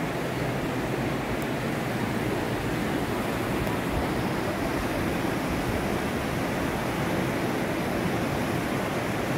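Mountain creek rushing over rocks in whitewater rapids, a steady, even rush of water.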